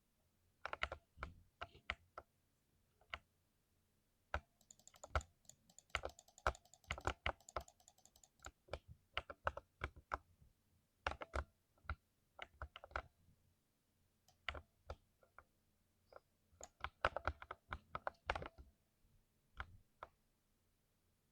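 Typing on a 60% mechanical keyboard with freshly lubed switches: irregular runs of key strokes separated by short pauses.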